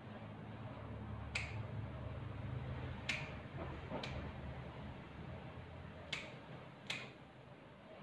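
Four sharp snips of a dog-grooming cutting tool, a second or more apart, over a faint low hum.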